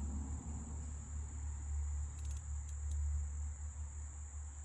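Insects, crickets or similar, keep up a steady high-pitched drone over a low rumble, with a few faint ticks about two seconds in.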